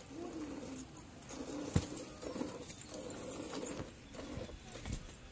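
Hand-milking into a steel pail of frothy milk: soft, irregular spurts of milk as the teats are pulled.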